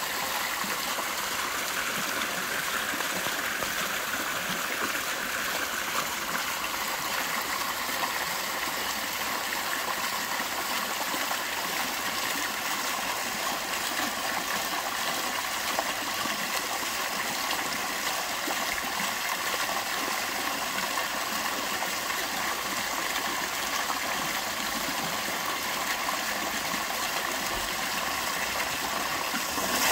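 Ornamental fountain splashing steadily: several vertical water jets fall back into a concrete basin, and water spills over its rim onto rocks.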